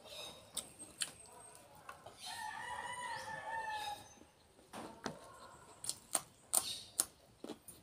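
A rooster crowing once in the background, a long call of about two seconds in the middle. It is followed by several sharp clicks from eating close to the microphone.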